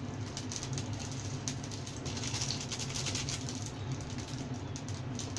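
Korean dumplings frying in hot oil, crackling and spitting in quick irregular pops over a steady low hum.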